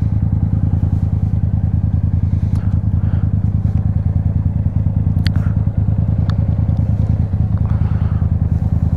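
Yamaha FZ-07 parallel-twin motorcycle engine idling steadily, with an even, fast pulse and no revving.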